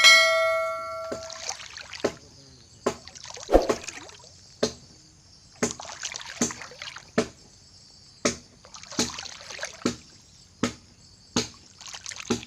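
A bell-like ding at the start that rings out for about a second and a half, then water splashing and churning, broken by repeated sharp knocks about once or twice a second.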